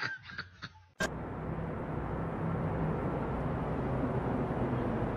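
About a second in, the steady low rumble of a car cabin starts suddenly: engine and road noise heard from inside the car. It holds even to the end.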